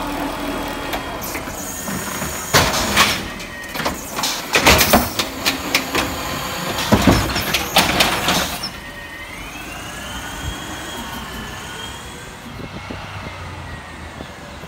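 Amrep automated side-loader arm on a natural-gas Autocar ACX garbage truck dumping a recycling cart: a run of loud bangs and clatter as the cart is shaken over the hopper and set back down. About eight and a half seconds in this gives way abruptly to the truck running more quietly, with a whine that rises and falls.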